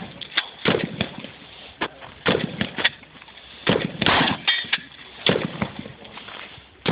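A shotgun fired repeatedly in quick succession, with several shots at uneven intervals from about half a second to a second and a half apart, each with a short echo.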